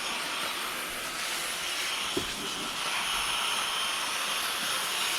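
Garden hose spraying water onto an air conditioner's condenser coil, a steady hiss. One brief click about two seconds in.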